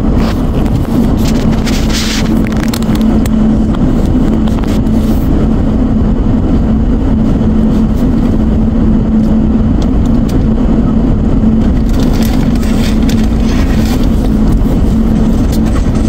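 Car cabin noise with the engine running while the car is stopped: a steady low hum over an even rumble.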